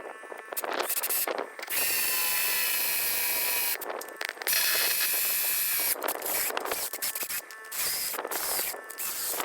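Handheld electric drill boring a row of small, closely spaced holes into the gearbox housing beside the high-speed shaft bearing, so a chunk can be knocked out to free the bearing. It runs in short start-stop bursts and two longer steady runs of about two seconds each.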